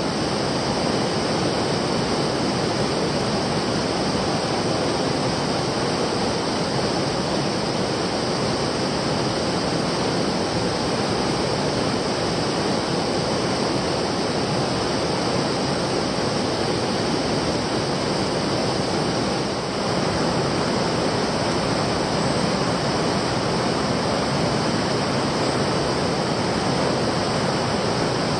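Fast-flowing stream water rushing steadily.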